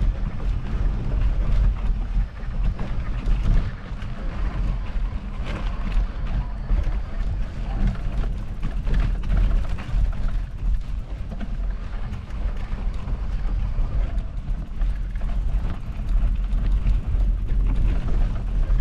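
Wind buffeting the microphone: a gusting low rumble that rises and falls unevenly.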